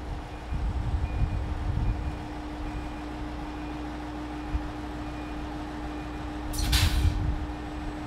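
Echigo Tokimeki Resort sightseeing diesel railcar at the platform: a steady engine hum, with a short burst of compressed-air hiss from its brakes about seven seconds in. Faint short beeps repeat in the background.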